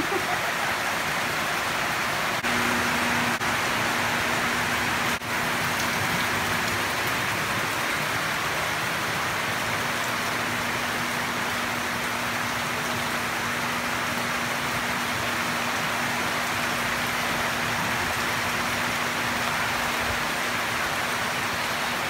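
Steady rain pouring down on leaves and a roof. A faint steady low hum sits underneath from about two and a half seconds in.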